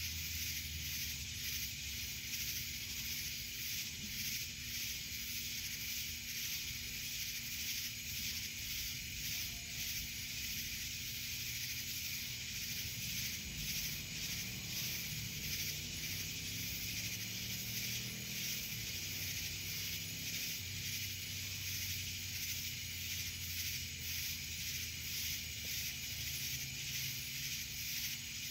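Night chorus of insects, including cicadas: a steady, high, pulsing buzz. A low hum runs underneath and slowly rises and falls about halfway through.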